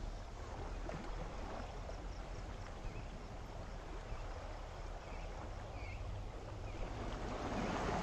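Sea waves washing gently on the shore, with steady wind rumble on the microphone and a few faint, short bird chirps in the middle; the wash swells louder near the end.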